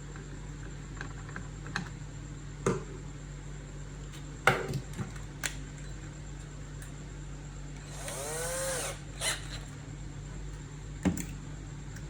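Scattered sharp clicks and knocks, as of small tools and parts being handled, over a steady low hum, with a short whine that dips and rises in pitch for about a second around two-thirds of the way in.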